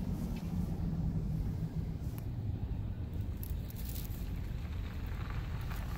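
Car driving slowly, heard from inside the cabin: a steady low rumble of engine and tyres.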